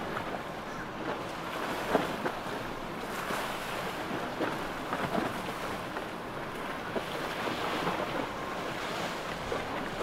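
Water rushing and splashing in the wake of a center-console boat running by under outboard power, with wind buffeting the microphone and a sharper splash about two seconds in.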